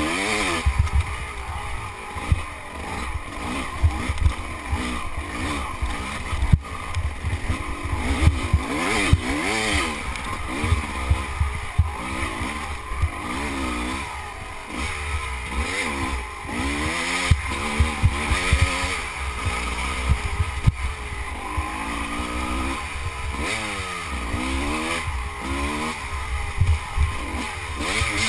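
Dirt bike engine heard from the rider's helmet, revving up and falling off again and again with shifts and throttle changes as it climbs rough ground. Knocks from the bumps and a low wind rumble on the microphone run under it.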